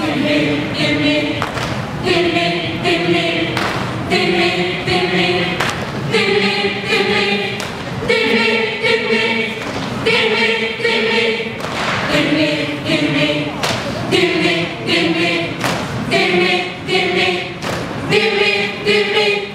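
A large mixed chorus of young men and women singing a cappella: long held notes in phrases of about two seconds. A dull thump falls roughly every two seconds.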